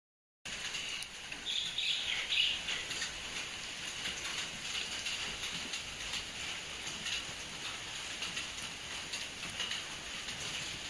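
Birds chirping, with a brief cluster of calls about two seconds in, over a steady high-pitched background.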